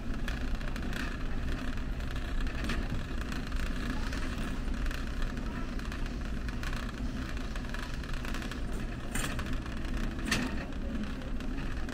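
Steady low rumble of a large warehouse store's ambience, with a few faint clicks scattered through it.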